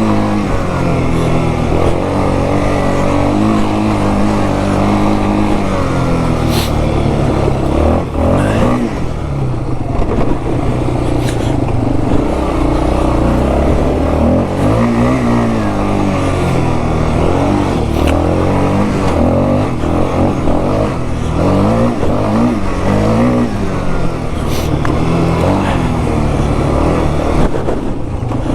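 2001 Yamaha Warrior 350's single-cylinder four-stroke engine through its stock exhaust, revving up and down again and again as the quad is ridden. It is running pretty good after a carburetor cleaning.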